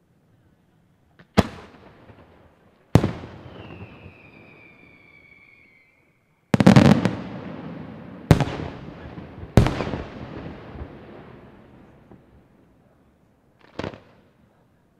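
Aerial firework shells bursting: five loud, sharp bangs a second or a few seconds apart, each dying away over a second or two, the heaviest about halfway through. After the second bang a high whistle slowly falls in pitch for a couple of seconds, and a fainter bang comes near the end.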